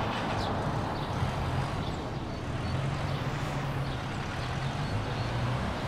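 Road traffic going past: a steady drone of car engines and tyres.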